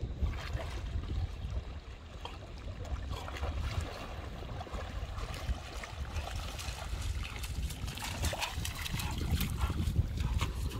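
An American bulldog wading through shallow river water toward the bank, his legs splashing, the splashes coming more and more often toward the end. A steady low rumble of wind on the microphone runs underneath.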